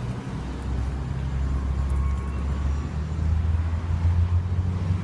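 Road traffic: a motor vehicle's engine running with a steady low drone that grows louder in the second half.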